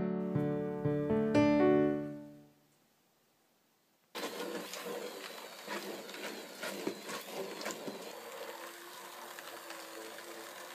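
Piano music that fades out about two seconds in. After a short silence, an electric stick blender runs in a stainless steel pot of whole grapes, crushing them with irregular clicks and knocks, its motor hum steadying in the second half as the grapes break down.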